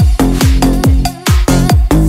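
Vietnamese nonstop dance remix: a heavy kick drum with a falling bass sweep on each hit, about two to three hits a second, under sustained synth tones.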